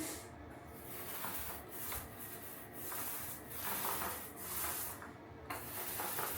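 Repeated rubbing strokes over a surface, swelling and fading about once or twice a second.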